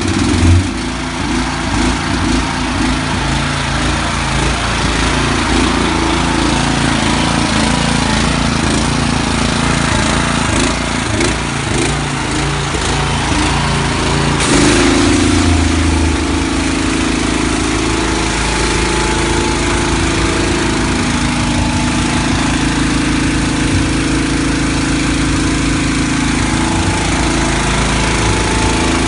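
Gasoline engine of a 13 hp wheeled hot-water pressure washer running steadily. About halfway through there is a brief burst of noise, after which the engine's note changes and holds.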